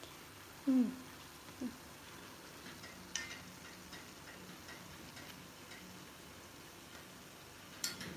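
Gulgule fritters frying in hot oil in a cast-iron pan, with faint crackling and a metal spoon clicking against the pan a couple of times, about three seconds in and near the end. A brief falling tone about a second in is the loudest sound.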